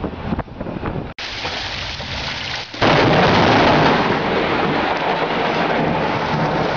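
Steady rain hiss, then about three seconds in a sudden, very loud thunderclap from a close lightning strike, which carries on as a loud rumble over the rain.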